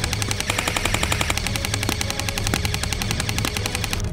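PTS Magpul PDR-C airsoft electric gun firing on full auto: a rapid, even rattle of its gearbox cycling shot after shot, with a few louder cracks among the shots. The firing cuts off near the end.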